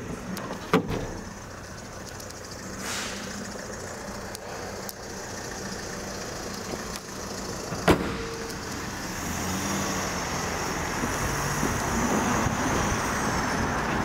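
Road traffic passing, a steady noise that grows louder in the second half. Two sharp knocks come, one about a second in and one just before the middle.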